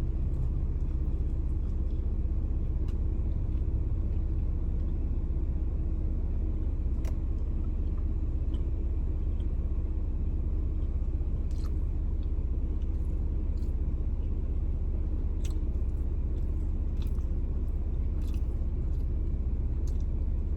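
Someone biting and chewing a steak burrito, with scattered soft mouth clicks, over a steady low rumble.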